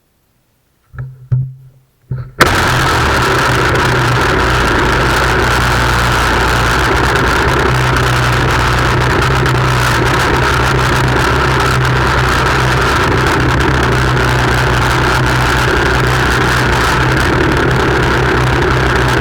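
Dolmar MS 4510 two-stroke brushcutter engine: a few short sputters about a second in, then it catches and runs loud and steady at an even speed.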